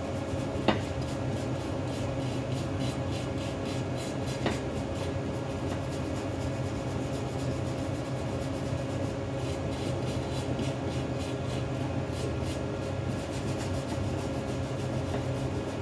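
A small wooden-handled hand brush scrubbing fast back and forth on the metal of a Moroso big-block Chevrolet oil pan, a quick rasping scratch, cleaning the seam area being brazed with silicon bronze. A steady shop hum runs underneath, with a couple of light clicks.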